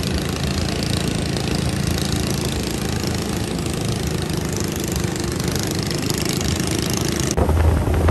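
Motorboat engine running steadily while under way, with the rush of water and wind. About seven seconds in, the sound changes abruptly to a deeper, louder engine hum.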